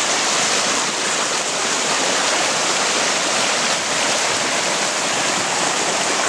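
Muddy floodwater rushing fast and shallow over the ground, a steady loud rush of churning water.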